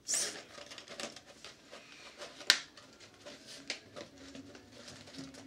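Plastic soda-bottle rocket parts handled by hand: a brief rustle and scrape at the start, then a single sharp click about two and a half seconds in, with a few lighter ticks after it.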